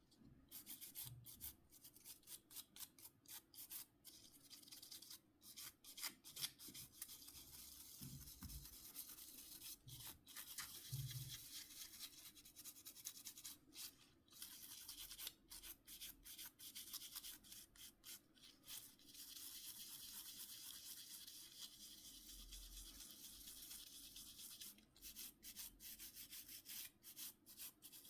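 Faint scrubbing of a brush on a Nokia C5-00 phone's casing, a dry hiss in many short strokes with brief pauses.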